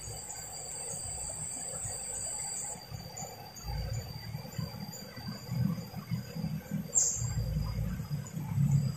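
Insects singing steadily in high continuous tones, one of them stopping about three seconds in and starting again near the end, with an irregular low rumble in the second half.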